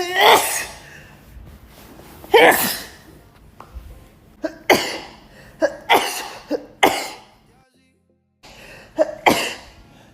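A woman in a sneezing fit: about six loud sneezes in quick succession, one to two and a half seconds apart, each a sudden burst with a short rising 'ah' before it, with quick breaths between them.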